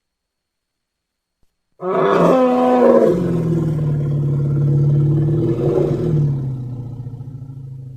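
Elephant call starting about two seconds in: a short higher, falling opening, then a long low call held steady that slowly fades near the end.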